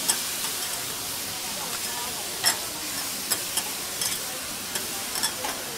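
Halved lobster sizzling on a hot flat steel griddle, with a steady hiss. Metal spatulas clink and scrape against the plate several times, loudest about two and a half seconds in.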